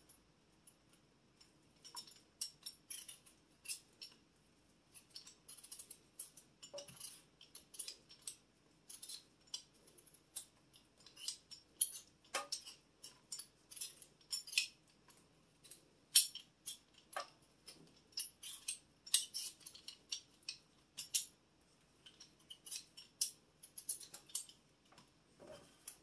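Hand vegetable peeler scraping the skin off a raw potato in quick, short strokes, several a second, coming in runs with brief pauses between them, with an occasional light knock.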